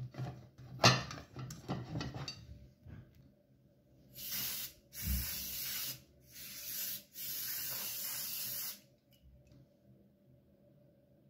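Aerosol spray can hissing in four bursts as it greases the baking dishes: two short, a very short one, then a longer one. Before it, hands rub butter around a ceramic baking dish with scattered clicks and one sharp knock.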